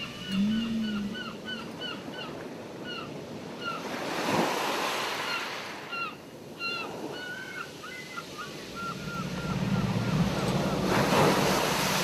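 Ocean surf washing on a beach, swelling about four seconds in and again in the last few seconds. Over it, gulls call in rapid runs of short cries, several a second, with pauses while the surf swells. Low moaning whale calls come in briefly near the start and again steadily toward the end.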